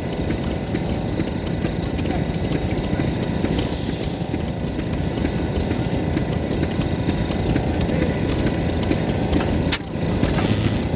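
Large Kubota FF-type 10 hp single-cylinder stationary engine running, a dense train of low exhaust knocks, with a brief drop in level about ten seconds in.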